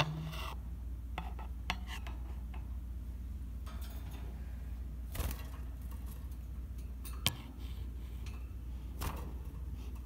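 Scattered small clicks and light rattles from budgies moving about a wire cage, over a steady low hum. The sharpest click comes about seven seconds in.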